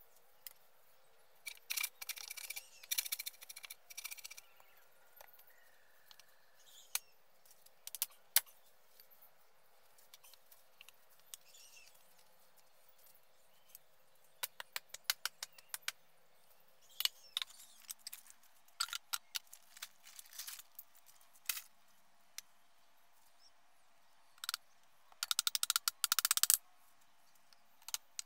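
Scattered knocks and clatter of bamboo poles being handled and fitted together, with two bursts of rapid tapping; the later burst, near the end, is a hammer striking a bamboo brace.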